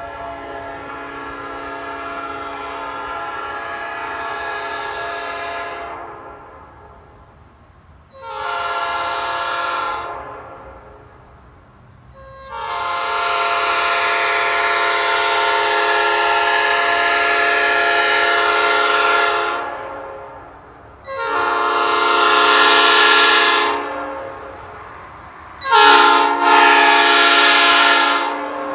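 Nathan Airchime P5 five-chime air horn, new cast (sand-cast, bells 1 to 5), sounding its chord in a series of blasts. First a long blast that swells in slowly, then a short one, a long seven-second blast and a shorter one. Near the end comes a louder blast that starts sharply and breaks briefly.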